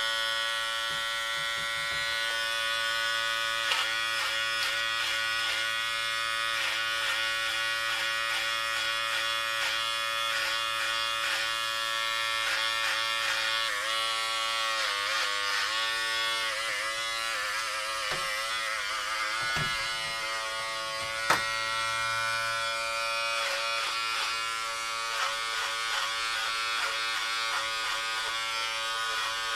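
Electric hair clippers buzzing steadily while cutting hair, the buzz wavering and dipping in pitch in the middle stretch. One sharp click about 21 seconds in.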